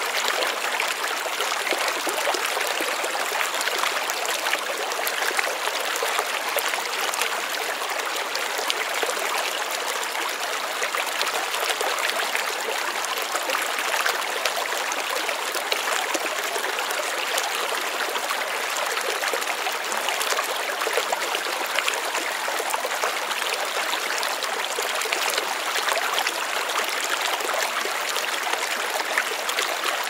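Shallow stream running and babbling over stones, a steady even rush of water.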